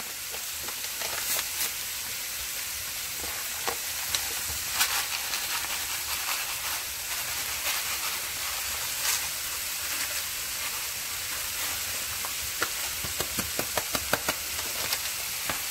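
Shredded cabbage and vegetables sizzling in oil in a skillet: a steady hiss with scattered pops, and a run of quick ticks near the end.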